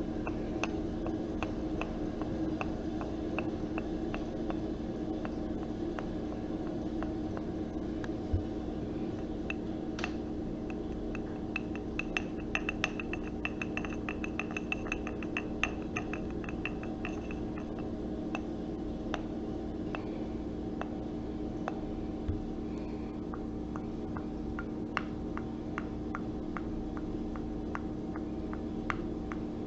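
Small objects handled by hand: scattered light clicks and taps, with a quicker run of ticks and a faint glassy ring near the middle, over a steady low hum.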